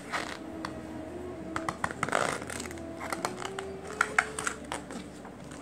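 Pages of a picture book handled and turned, with a run of irregular taps and clicks and a brief papery rustle about two seconds in; the sharpest clicks come about four seconds in.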